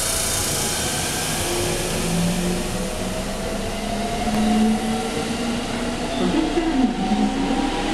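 JR West 223 series 1000 electric multiple unit pulling out and accelerating along the platform: the inverter-driven traction motors whine in slowly rising tones, stepping up about three seconds in, over the rumble of the wheels on the rails.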